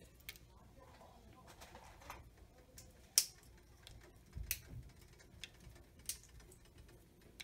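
Faint, scattered sharp pops and ticks of whole spices crackling in hot oil in a nonstick pan, with one louder pop about three seconds in and a soft low thump a little later.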